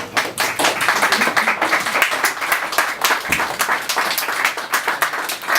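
An audience applauding: many hands clapping together, dense and steady throughout.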